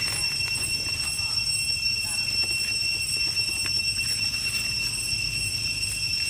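A steady high-pitched whine held on one pitch, with a fainter higher overtone, over a low background rumble.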